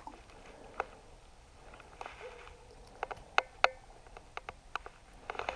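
Scattered sharp clicks and ticks from a fishing rod and reel being worked against a snag, with two louder clicks about three and a half seconds in.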